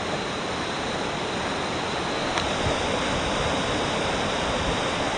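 Steady rushing of whitewater churning below a river weir, close to the microphone.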